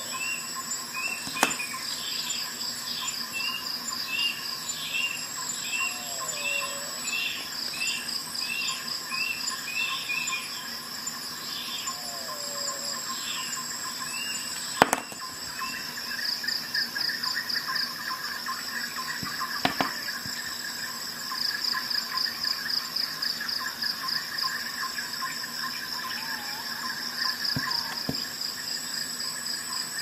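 Insects chirring steadily throughout, with a bird chirping in quick repeated notes through the first third and giving a few short whistled calls. Three sharp clicks stand out.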